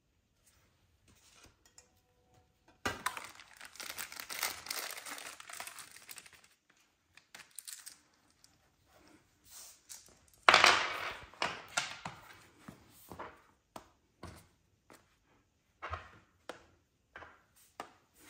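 Plastic parts bags and the cardboard box of a wall-mount kit crinkling and rustling as parts are handled. There are two spells of crinkling, the louder one about ten seconds in, followed by scattered light clicks and knocks of small hardware and a plastic tray being picked up.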